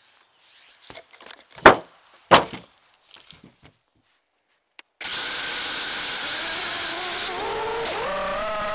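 A few scattered clicks and two louder sharp knocks. Then, about halfway through, a steady whirring from a small FPV quadcopter's motors starts, its pitch rising and falling near the end.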